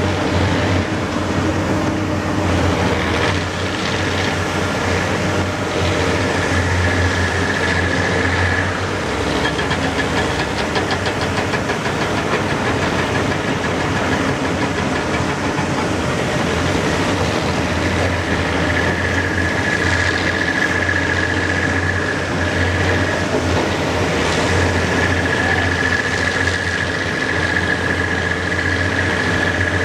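Cat 385B LME excavator's diesel engine running steadily under working load as it digs and swings, with a high steady whine that holds for several seconds at a time, twice.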